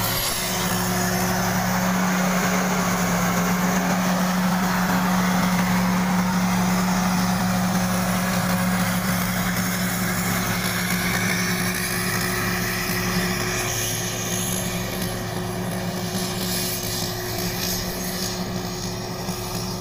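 Rice combine harvester running steadily, a continuous engine drone. It grows a little fainter in the second half as the machine pulls away.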